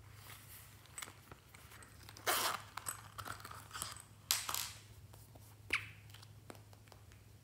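Hands handling small plastic containers, a shield-shaped case and a glitter glue bottle, with scattered light clicks and three or four short, sharp scraping or rustling sounds as lids and caps are worked.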